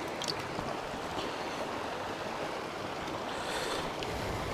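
Shallow, rocky mountain creek running over stones in riffles: a steady rushing of water.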